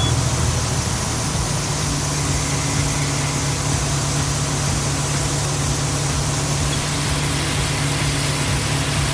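Water spraying from a toy fire truck's small pump: a steady hiss over a low, even motor hum.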